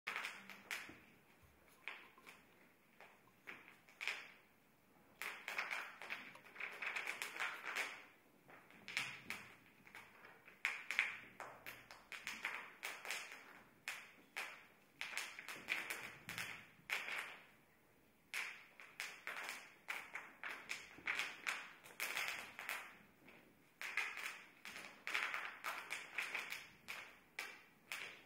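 Irregular runs of sharp taps and clicks, coming in clusters a second or two long with short pauses between.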